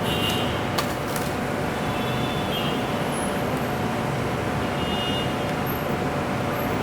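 Steady road-traffic rumble, with two light clicks about a second in.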